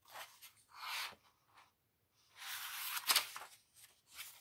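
Paper rustling as the page of a hardcover picture book is turned by hand: a couple of soft swishes, then a longer rustle about halfway through that ends in a sharp snap of the page.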